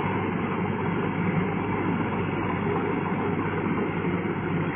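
Engine of a P. Charoen Phatthana tracked rotary tiller running steadily under load as it churns a flooded rice paddy.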